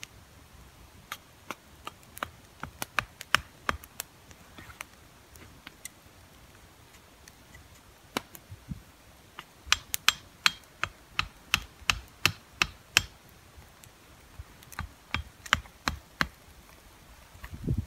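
Hatchet striking a stick of firewood with short, light chops to make kindling: a run of sharp knocks coming in irregular bursts, fastest about two-thirds of the way through, at roughly three a second.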